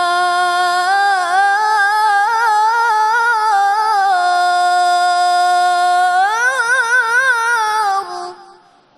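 A male qari reciting the Quran in the melodic style, holding one long vowel with wavering melismatic ornaments; about six seconds in the line climbs into a higher ornamented phrase, then fades out near the end.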